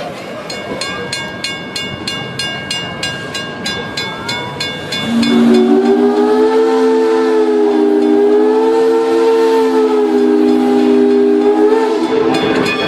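Steam locomotive bell ringing at about three strokes a second. About five seconds in, the locomotive's steam whistle takes over with one long blast, a chord of several tones that wavers slightly and stops near the end.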